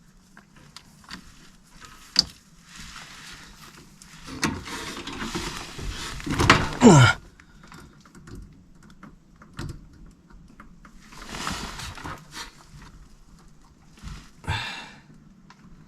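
Hands working meter test leads and wiring inside an HVAC air handler: scattered small clicks and rustling, a short squeak that falls in pitch about seven seconds in, and a sharper clack near the end.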